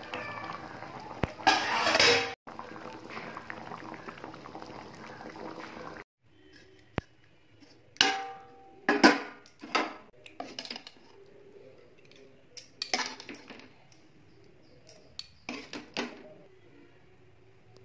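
A metal spoon scraping and clinking against a metal kadai of thick vegetable curry, with a loud clatter about two seconds in and scattered separate clinks in the second half as the curry is ladled out into a bowl.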